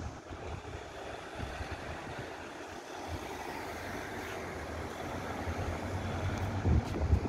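Road traffic: cars driving round a roundabout, a steady rushing hiss that swells a little in the middle. Wind buffets the microphone now and then, strongest near the end.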